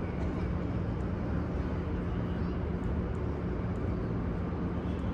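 Steady background din of a large crowd, a low murmur of many people with a steady low hum beneath it.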